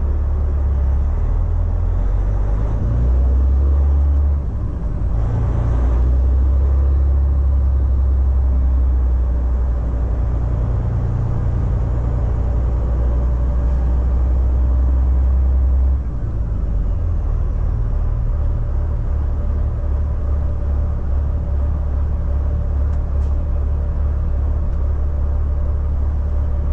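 Caterpillar C15 diesel of a Peterbilt 389 running under load as the truck tows a container chassis at low speed: a deep, steady drone. It changes note about four seconds in and again about sixteen seconds in.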